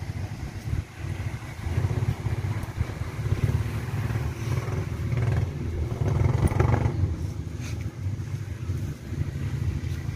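Wind buffeting the microphone: a low, uneven rumble that swells and drops throughout.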